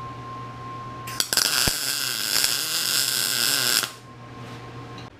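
Wire-feed welder arc crackling and hissing as it lays a weld on plate steel. It strikes a little over a second in and stops after about two and a half seconds, with a steady low hum before and after.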